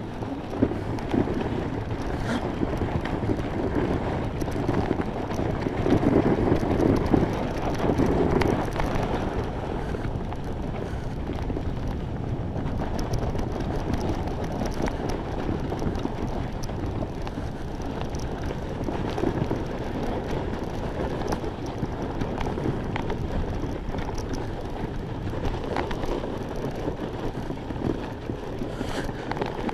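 Sled sliding fast down a packed-snow track: a continuous scraping hiss from the runners on the snow, with wind buffeting the microphone. It grows louder for a few seconds about five seconds in.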